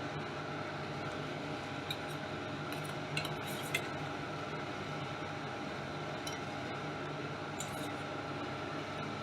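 Steady hum of a kitchen chimney (range hood) fan running, with a few light clinks of a utensil against the cookware scattered through.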